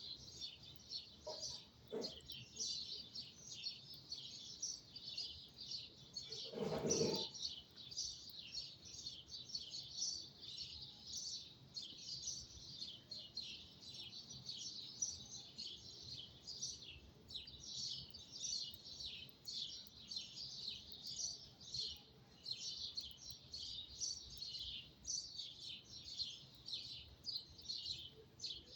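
Many small birds chirping and twittering at once in a dense, continuous high-pitched chorus. About seven seconds in, a brief louder noise lasting under a second rises over the birdsong.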